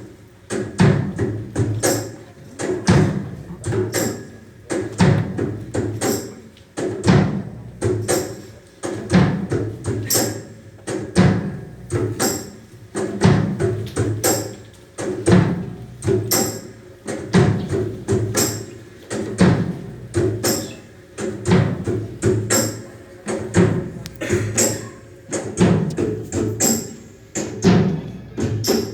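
Background music with a steady percussive beat, about one strong beat a second, with quicker clicking strokes between the beats.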